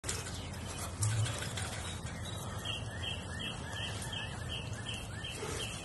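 A bird calling in a steady run of short, high chirps, about three a second, starting about two seconds in, over steady outdoor background noise with a brief low rumble about a second in.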